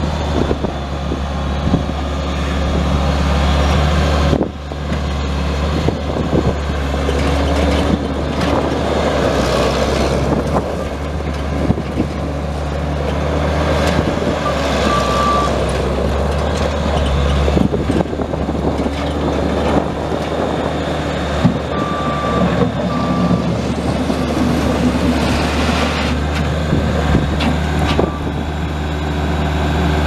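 1999 Case 75XT skid steer's four-cylinder diesel engine running steadily, with scattered knocks as the machine works. A few short high beeps sound about halfway and again about three-quarters of the way through.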